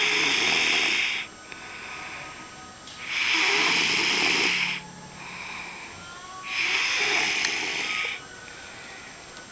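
Snoring: three loud, noisy breaths about three seconds apart, each lasting a second or more, with quieter breaths between them.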